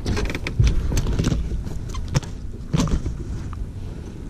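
A handful of sharp clicks and knocks from handling a just-landed bass and the landing net on a boat deck while the lure is unhooked, over steady low background noise.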